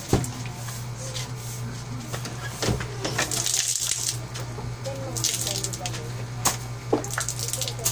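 Wet splashing and rubbing as a soaked dog's coat is scrubbed by hand during a bath, over a steady low hum. A few sharp clicks come near the end.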